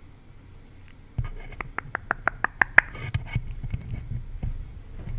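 A pet parrot making a quick run of short, sharp clicks, about six a second, close to the microphone. Low rubbing and bumping noise sets in just before the clicks and continues, with scattered ticks afterwards, as the bird handles the microphone.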